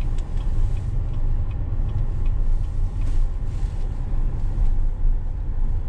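Road noise heard from inside a moving car's cabin: a steady low rumble of tyres and engine while driving.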